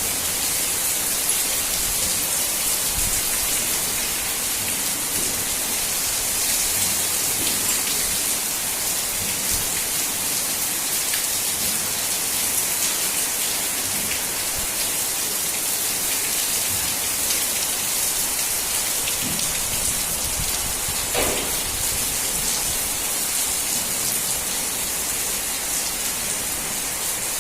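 Torrential rain pouring down in a steady, dense downpour.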